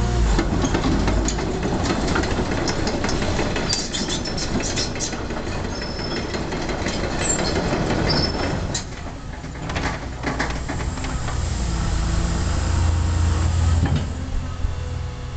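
Caterpillar 324 excavator's diesel engine running, with repeated metallic clanking and rattling over the first nine seconds or so. Near the end the low engine drone grows stronger.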